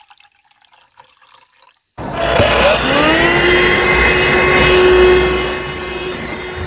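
Handheld vacuum cleaner switched on about two seconds in. Its motor spins up with a rising whine, then settles into a steady loud whir over the rush of suction, easing slightly near the end.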